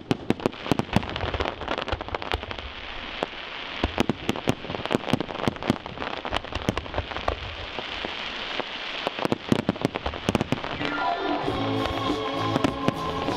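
Aerial firework shells bursting in a rapid barrage, many sharp reports over a continuous hiss. Music comes in about eleven seconds in.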